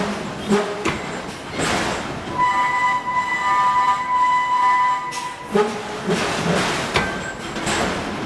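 Forge-shop noise from a hydraulic forging hammer working steel: a series of heavy, hissing strikes. A steady high tone sounds for about three seconds in the middle and then cuts off.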